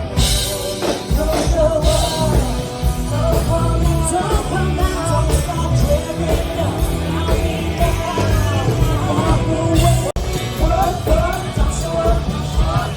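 A live rock band playing with a singer, heard loud at close range, with a momentary break about ten seconds in.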